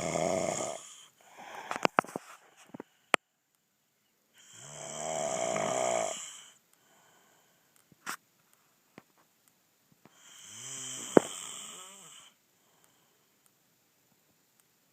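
A man snoring loudly: long snores of about two seconds each, coming every five to six seconds, with near silence between them and a few sharp clicks.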